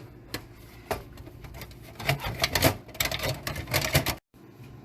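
Irregular clicks and knocks of PC parts and cable connectors being handled and fitted together, busiest in the second half and cutting off suddenly about four seconds in.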